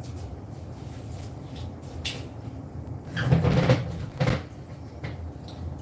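Household clatter over a steady low hum: a loud scraping clatter about three seconds in, then a short sharp knock.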